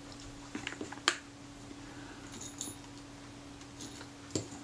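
A few small metallic clicks and clinks as a Kodak Retina IIIS lens-mount ring with its depth-of-field gearing is handled and moved, the sharpest about a second in and another near the end, over a faint steady hum.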